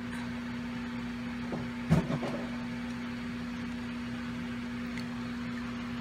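Steady low background hum, with one brief soft sound about two seconds in.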